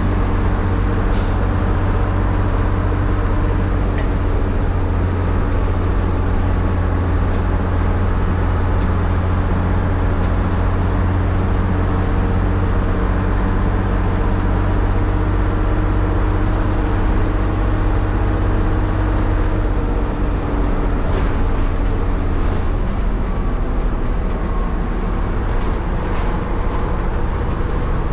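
Leyland Leopard bus's Leyland 680 11.1-litre diesel engine running steadily, its low note changing about twenty seconds in. A few brief sharp clicks or hisses are heard over it.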